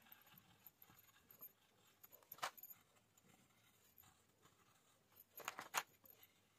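Near silence: faint coloured-pencil strokes on paper, with a sharp click about two and a half seconds in and two quick clicks near the end, as pencils are put down and picked up.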